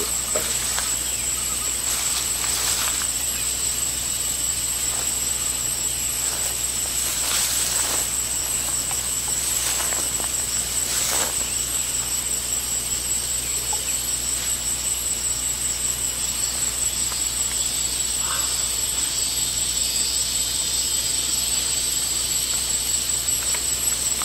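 Steady high-pitched drone of insects in the forest, with a few brief faint sounds scattered through it.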